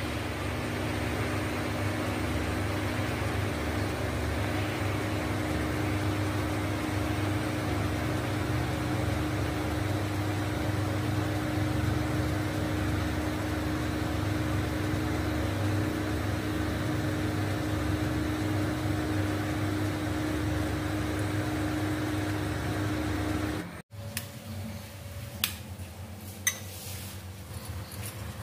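A steady machine hum with a low drone and a held tone, cutting off suddenly about 24 seconds in. After it comes quieter room tone with two sharp clicks.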